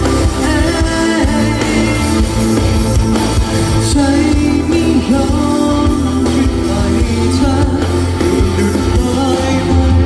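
A band playing a Thai pop-rock song, with singing over the instruments.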